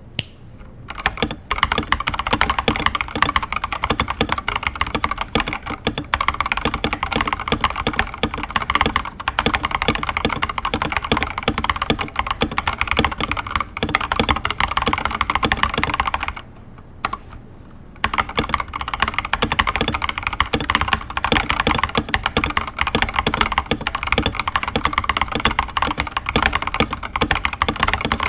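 Stock, unmodified Gamakay LK67 mechanical keyboard typed on quickly and continuously, a dense run of key clacks. There is a pause of about a second and a half a little past halfway.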